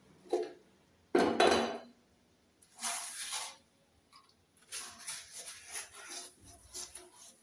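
Scrubbing and rubbing as cleaning paste is worked onto a gas stove's burners with a sponge, in several short bursts, with a loud metallic clatter about a second in.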